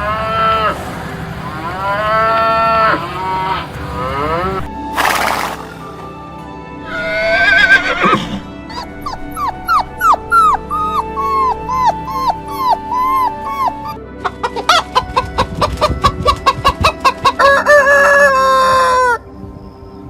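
A string of animal calls one after another. First cattle lowing in several drawn-out calls, then a horse's descending whinny. A dog gives about a dozen short yelps, and finally hens cluck rapidly before a rooster crows near the end.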